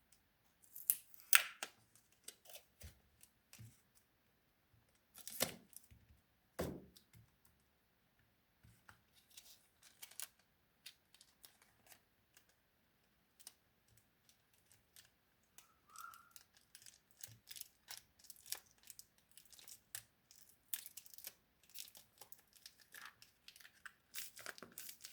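Crinkling and tearing of material being handled in a small room: irregular sharp rustles and clicks, a few louder strokes in the first seven seconds, getting busier near the end.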